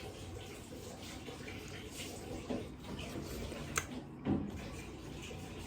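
Steady hiss of background noise with a few faint clicks, a sharp tick near the middle and a dull thump about four seconds in.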